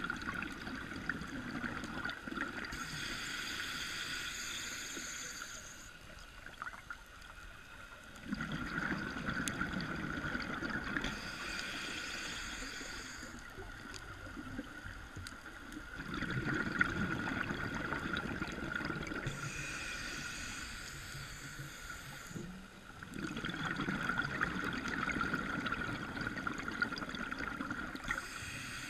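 Scuba diver breathing through a regulator underwater: a hissing inhalation alternates with a bubbly, rumbling exhalation, one breath about every seven to eight seconds, four times over.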